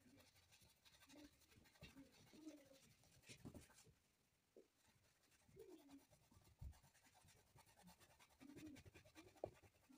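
Very faint scratchy strokes of a paintbrush on a painting board, close to silence.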